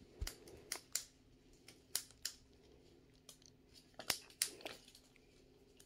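Faint, scattered clicks and rustles of a syringe and its wrapping being handled in gloved hands as a flu shot is readied.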